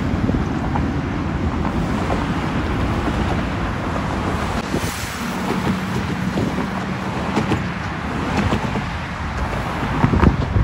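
Steady rush of road traffic on a bridge, mixed with wind buffeting the microphone. A louder swell comes near the end as a vehicle passes close.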